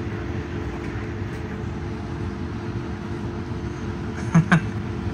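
Cabin sound of a small electric self-driving minibus on the move: a steady low road rumble with a constant hum. Two short loud sounds come near the end.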